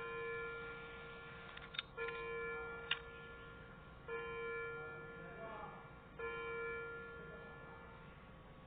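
Faint chime-like music: the same bell-like note struck four times about two seconds apart, each fading away, with a few soft clicks between them.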